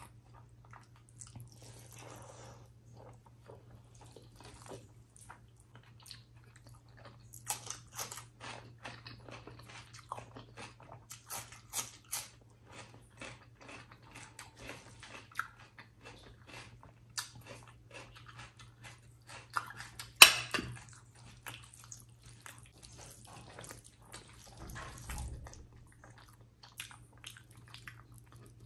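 Close-up eating sounds of rice and chicken liver curry eaten by hand: wet chewing and lip smacks, with squishing as fingers mix the rice into the gravy. One much louder sharp smack comes about twenty seconds in, over a faint steady low hum.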